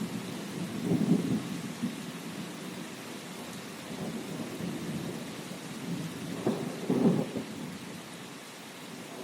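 Steady rain hiss, with low rumbles swelling about a second in and again around seven seconds.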